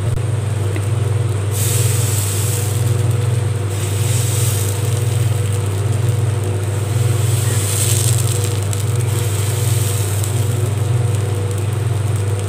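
Appam batter hissing and sizzling on a hot non-stick appam pan as it is poured in and swirled, in bursts from about a second and a half in, over a steady low hum.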